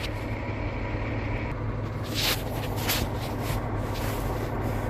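Steady low rumble of an idling diesel truck engine, with a couple of brief handling noises a little over two seconds in.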